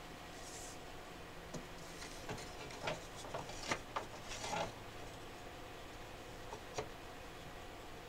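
Light wooden knocks, clicks and a short scrape as a hinged hive window panel is swung open and wooden frames are pushed along their steel frame spacers. The knocks cluster from about one and a half to five seconds in, and there is one more click near the end.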